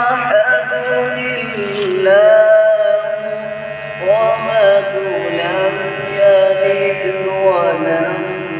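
Male qari chanting Quran recitation (qirat) in long, held melodic phrases with ornamented runs, with brief pauses for breath between phrases.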